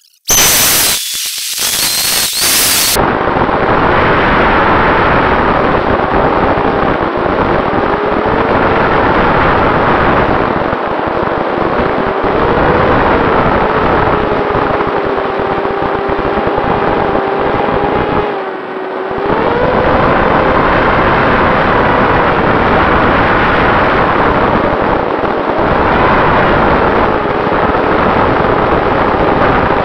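Small electric motor and propeller of a NanoSkyHunter RC plane in flight, heard from its onboard camera through heavy wind rush. A very loud burst for the first few seconds at launch, then a steady buzz with a faint whine that shifts in pitch as the throttle changes, dropping briefly a little past halfway.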